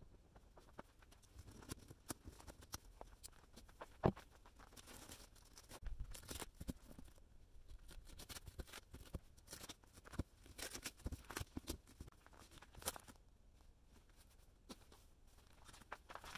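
Packing tape and cardboard being torn and pulled off a new tyre-and-wheel set: scattered crackles, rips and clicks, with one sharp knock about four seconds in.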